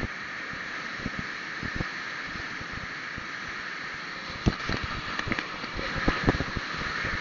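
Steady rushing wind and road noise on the microphone of a moving vehicle, with irregular low buffeting thumps that grow stronger and more frequent about halfway through.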